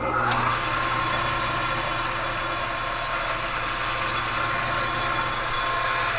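South Bend metal lathe starting up and running steadily, its motor and gear train giving a low hum with a thin, steady whine above it as the four-jaw chuck spins the shaft.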